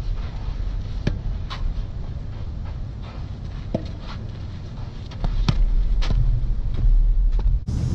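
Tennis rally: sharp pops of racket strings striking the ball and of the ball bouncing, several times at a few seconds' spacing, with wind rumbling on the microphone from about five seconds in.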